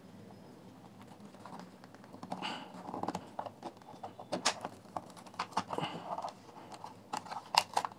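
Flat-blade screwdriver prying at the seam of a JBL Charge speaker's plastic housing: scattered plastic clicks and short scrapes, with sharper clicks about four and a half seconds in and near the end.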